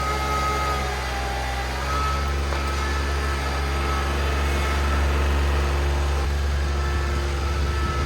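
Kubota L3901 compact tractor's diesel engine running steadily under load in low gear as its loader pushes a pile of asphalt millings.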